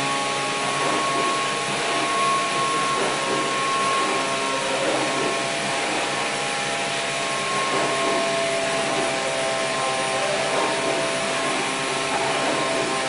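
Steady whirring of a motor-driven machine, with a whine that slowly drifts in pitch.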